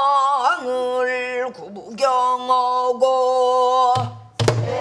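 A woman sings a danga phrase in pansori style, holding long, steady notes, while beating a buk barrel drum. A deep drum thump comes near the end.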